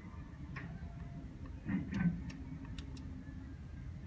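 Distant fireworks: dull booms, the loudest about two seconds in, with a few sharp cracks scattered through.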